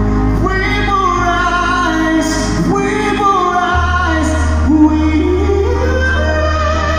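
A man singing a slow ballad live into a microphone, long held notes with vibrato, over a backing track of sustained bass and keys, amplified through the concert sound system.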